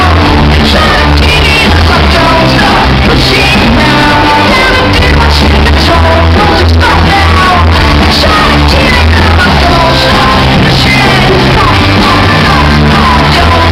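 Live rock band playing loud: shouted, sung lead vocals over bass guitar, electric guitar and drums.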